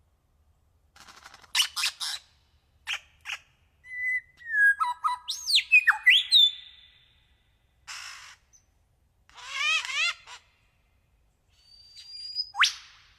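Bird calls in a varied series of phrases with short pauses between: harsh chattering notes, clear whistles that slide down and then up, a quick rippling trill, and a sharp rising whistle near the end.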